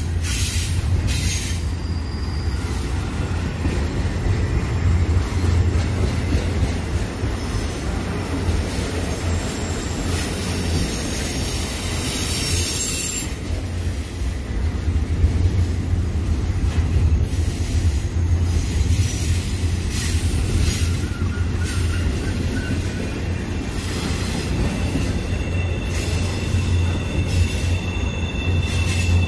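Double-stack intermodal freight train rolling past: a loud, steady rumble of steel wheels on the rails. A thin, high wheel squeal comes in over the last few seconds.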